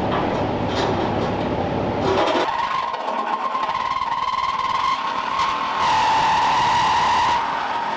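Reciprocating saw (Sawzall) cutting the truck's sheet metal near the clutch pedal. From about two seconds in its motor holds a steady high whine that sags slightly and gets louder and harsher for a second or so near the end as the blade bites.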